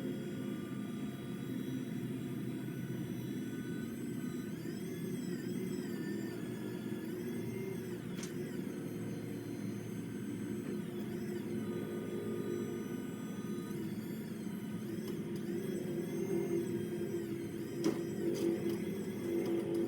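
A motor running steadily, with a couple of sharp clicks near the end.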